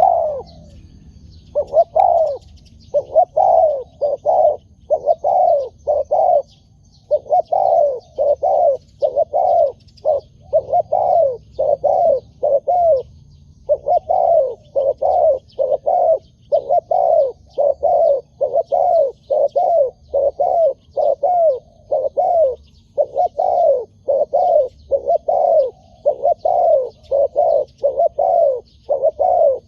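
Spotted dove cooing: long runs of short coos, about two a second, broken by brief pauses. Small birds chirp faintly and high-pitched behind it.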